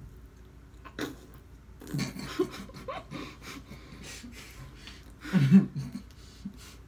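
Muffled laughing, heavy breathing and mumbled voice sounds from people with their mouths stuffed full of marshmallows, loudest about five and a half seconds in.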